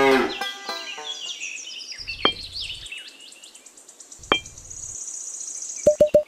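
Light knocks of tiny clay bricks being set down, twice, about two and four seconds in, over soft background bird chirps. The tail of a cow moo ends at the very start, and near the end a quick run of short repeated musical notes begins, louder than the rest.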